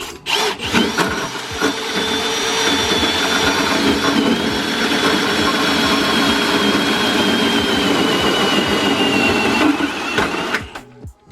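Electric drill running a hole saw, cutting a hole through a panel: a steady whir with a thin whine that sags slightly in pitch as it bites, stopping about ten seconds in.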